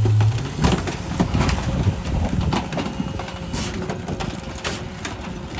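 Rear-loading garbage truck running. A loud steady hum drops off just after the start, leaving the engine running under scattered knocks and clatters of bulky trash being handled at the hopper.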